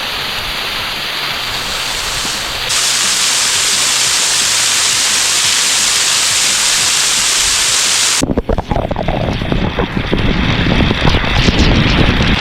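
Waterfall rushing: a steady, loud wash of falling water that cuts abruptly to a louder, brighter take about three seconds in. About eight seconds in it switches suddenly to a rougher, uneven sound with more low rumble.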